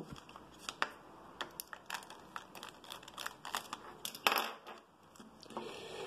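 Small clicks and taps of a plastic LED puck light's casing being handled and pulled apart, with a short rasping scrape about four seconds in.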